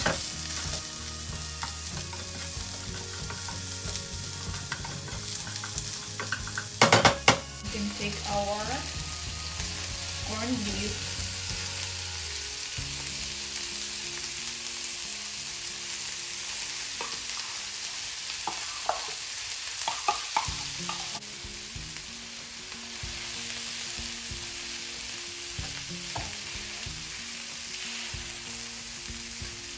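Sliced onions and canned corned beef sizzling in hot oil in a frying pan, stirred and scraped with a wooden spatula. A few loud knocks come about seven seconds in.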